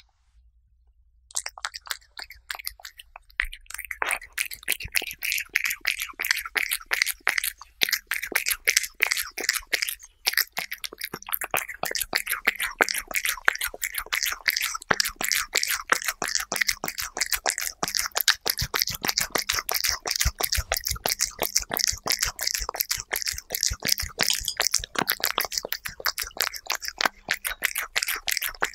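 A cat eating soft chicken-breast puree close to a microphone: a rapid, continuous run of wet licking and chewing clicks that starts about a second in.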